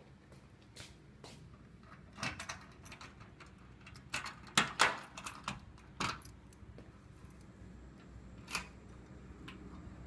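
A few footsteps on a tiled floor, then a run of sharp clicks and knocks of a door being unlocked and opened, loudest about halfway through.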